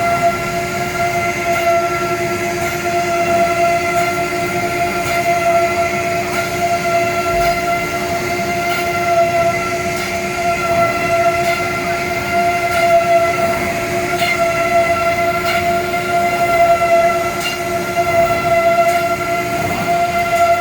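Woodworking CNC router's spindle running at a steady high speed: a loud, even, pitched whine that holds throughout, with faint clicks here and there.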